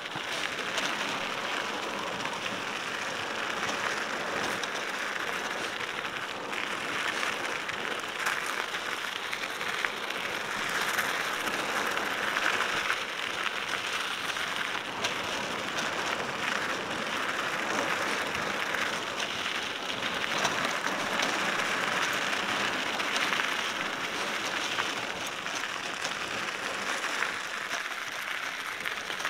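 Mountain bike rolling down a dry dirt single-track: a steady, crackly rush of tyres on dirt, dotted with small ticks and rattles from the bike.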